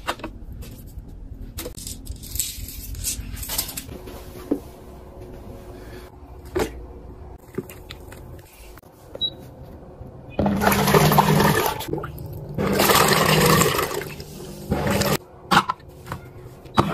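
Light plastic clicks and knocks, then two loud stretches of water rushing and churning with a low motor hum under them, from a portable mini washing machine, and a short splash near the end.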